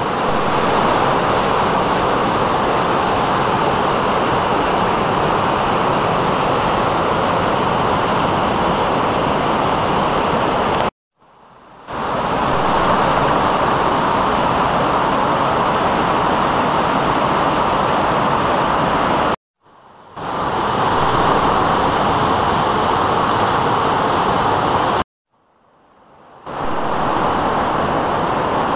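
Rushing white water of a mountain river pouring down rock cascades: a loud, steady rush. It cuts off abruptly three times and fades back in after each break.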